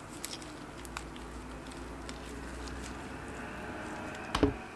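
Lipsticks and slime being handled in a glass dish: a few small plastic clicks in the first second as a lipstick is scraped with a small tool, then one dull thump near the end.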